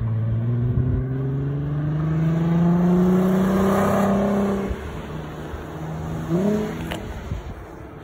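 A Volkswagen hatchback's engine accelerating past under load, its note rising steadily and loudest as it goes by. About four and a half seconds in it drops off as the throttle is lifted, and a short, quick rev follows.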